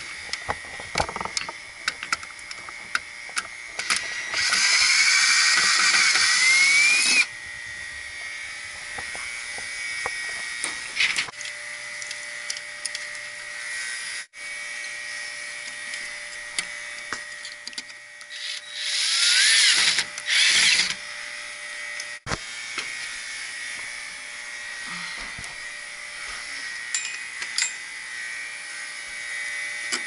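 Cordless screwdriver running in two bursts of about three and two seconds, its pitch rising as it spins up, turning screws at a heat pump's contactor. Light clicks and rattles of handling between the bursts.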